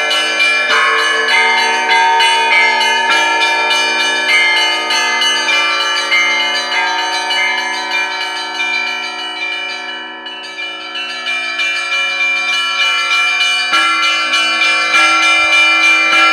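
Russian Orthodox church bells ringing: small bells struck quickly, about four strokes a second, over the lingering hum of larger bells. The ringing thins and fades around the middle, then a heavier strike brings it back up near the end.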